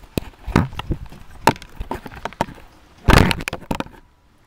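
Irregular sharp knocks, clicks and crackles close to the microphone, loudest in a cluster about three seconds in, stopping abruptly at about four seconds.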